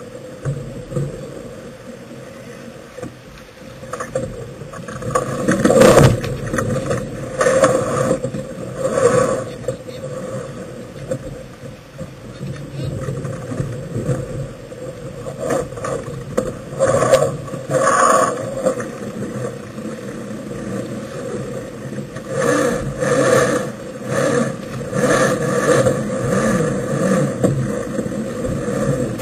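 Wind and water noise aboard a sailing yacht, with repeated louder bursts of rustling and scraping as the crew handles the sails and lines.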